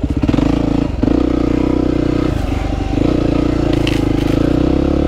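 Yamaha WR250R's 250 cc single-cylinder engine running hard under load, pushing the dual-sport bike through deep, soft sand. Its steady drone dips briefly about a second in and again around two and a half seconds in as the throttle eases.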